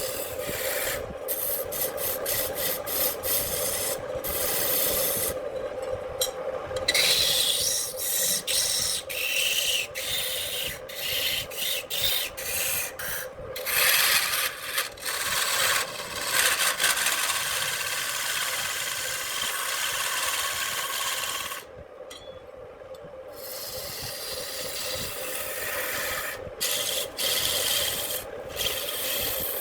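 Handmade wood lathe spinning a branch while a turning tool cuts it: rough scraping that stops and starts over a steady hum, with a brief lull about three-quarters of the way through.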